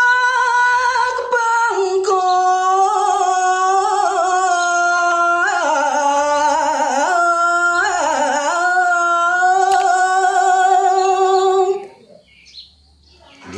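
Unaccompanied solo voice singing a line of Balinese pupuh Ginanti, a geguritan chant, in long drawn-out notes that step down in pitch a few times with ornamented turns. The singing stops about twelve seconds in, followed by a brief lull.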